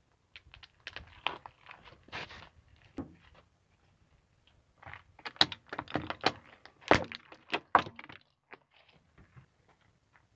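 A car tyre rolling over and crushing things on asphalt, heard as crackles and sharp cracks in two runs. The second run is denser and louder, loudest about seven seconds in, as plastic sunglasses crack and snap under the tyre.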